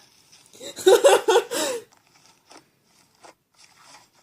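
A girl's short, high-pitched vocal exclamation about a second in, then faint crunching and crackling clicks of slime being squeezed and poked in an ASMR slime video playing back.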